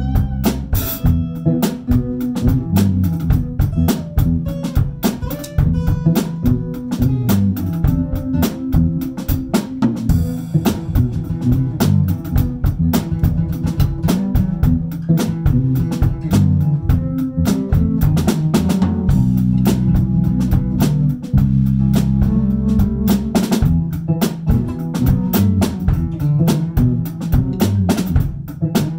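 Live band jamming an improvised instrumental groove: a drum kit played steadily with rimshots and bass drum, over bass guitar and guitar.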